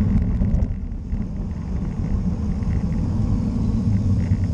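Wind buffeting the microphone of a camera riding on a moving bicycle: a steady low rumble, with road and tyre noise beneath.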